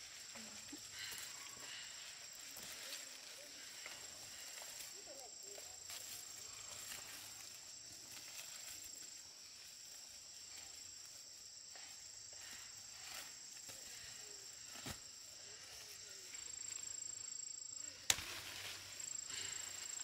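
Steady high-pitched chorus of insects, with faint rustling of leaves and handling, and one sharp click near the end.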